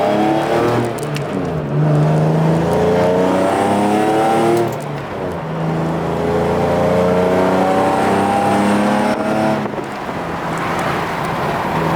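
Nissan Z's engine accelerating hard, its pitch climbing through a gear. It drops at an upshift about five seconds in, climbs again, and drops at a second upshift near the ten-second mark.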